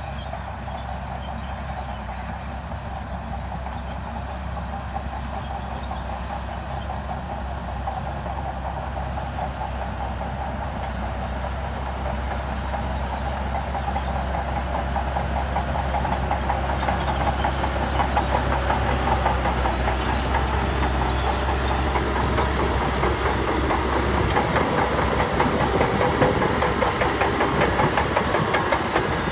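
Diesel engine of heavy earthmoving machinery running steadily, with a fast metallic clatter that builds up and grows louder from about halfway through.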